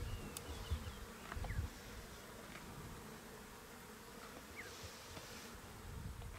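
Faint steady buzzing of flies around an elephant carcass, with a soft low thud about a second and a half in.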